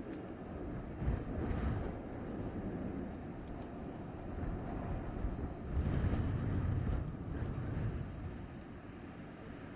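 Blizzard wind blowing in gusts, a deep rushing noise that swells about a second in and again, most strongly, around six seconds in.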